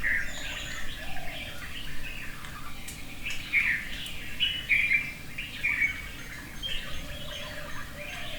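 Birds chirping, with short high calls repeating over and over, over a low rumble of wind on the microphone.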